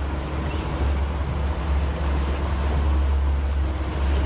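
A fishing boat's engine running steadily with a low drone, under a hiss of water and wind.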